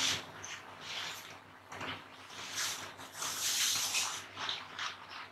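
Rustling and shuffling of bedsheets and pillows as a person twists and struggles on a bed, in short irregular bursts.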